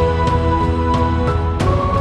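Background music: sustained chords over a steady beat, the chord changing about one and a half seconds in.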